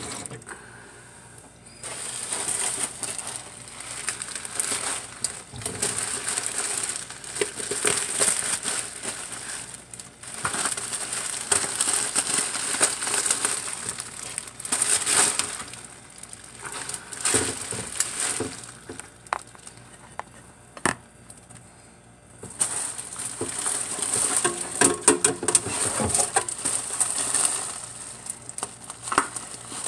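Plastic poly mailer bag crinkling and rustling as it is handled, in irregular bouts with a quieter lull about two-thirds through and one sharp click in that lull. A running tap stops right at the start.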